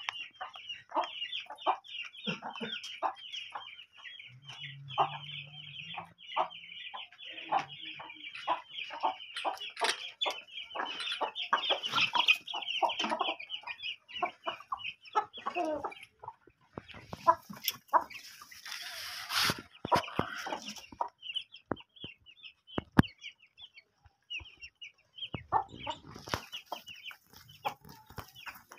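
Aseel chickens in a flock: chicks peeping continuously in rapid high chirps while the adult hens and rooster cluck in short calls. A short noisy burst comes about two-thirds of the way in.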